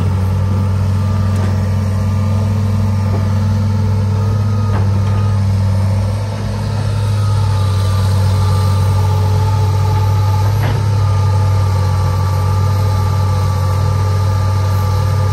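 Heavy diesel engines running steadily, the Hitachi excavator working and the three-wheeled công nông farm truck idling beside it, with a few sharp knocks as soil is dumped into the truck's bed. The engine sound dips briefly about six seconds in.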